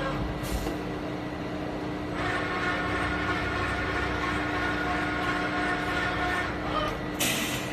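CNC vertical machining center running, with a steady hum and a stack of steady whirring tones that comes in about two seconds in and drops away near the end. Two short hisses, one about half a second in and a louder one near the end.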